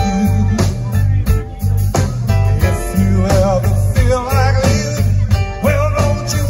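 Live band playing through a PA: electric guitars, bass and drum kit in a steady groove, with a wavering pitched lead line over it.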